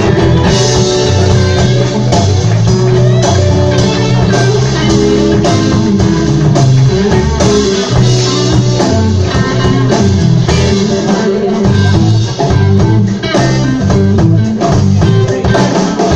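Live blues band playing: guitar over a stepping bass line and drums.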